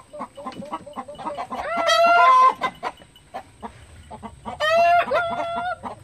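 A rooster crowing twice, each crow about a second long and a few seconds apart, over hens clucking.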